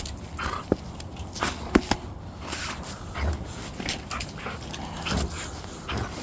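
Dogs at play, making short scattered sounds, with two sharp clicks about a second and nearly two seconds in.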